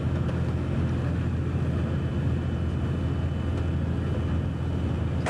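Tour coach's engine and road noise heard from inside the cabin: a steady low drone that holds an even pitch and level.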